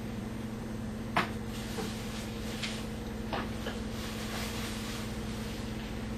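Paper book pages being handled and turned: a sharp snap about a second in, then softer rustles and small ticks, over a steady low hum.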